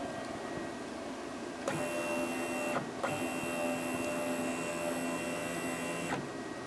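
Stepper motor of a DIY CNC machine's Z axis driving the axis down onto a soda can, a steady multi-tone electronic whine. It starts about two seconds in, stops briefly about a second later, then runs on and cuts off about six seconds in.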